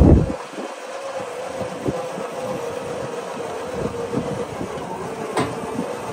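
Winch cable dragging a heavy truck flatbed on its axle and tires up onto a wooden trailer deck: a steady whine runs under scraping and clattering knocks, after a heavy thump at the start. The whine stops near the end.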